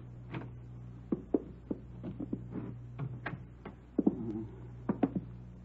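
Footsteps of several people walking on a hard floor, a radio-drama sound effect: irregular sharp steps about three a second, over a steady low hum.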